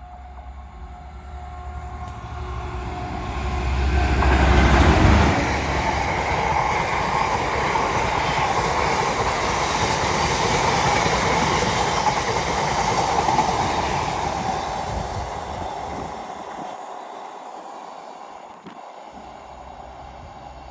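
A train passing by: it builds up, is loudest with a heavy low rumble about five seconds in, keeps up a steady rush of wheels on rails for several seconds, then fades away.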